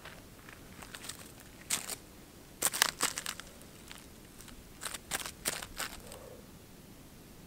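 Crisp crunching and crinkling in three short clusters, about two seconds in, near three seconds (the loudest) and around five seconds: footsteps on dry ground and sitting down on a wooden stump, then a small object being handled and crinkled.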